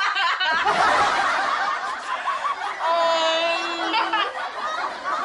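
Women laughing, breathy and choppy, with one long held vocal note about three seconds in.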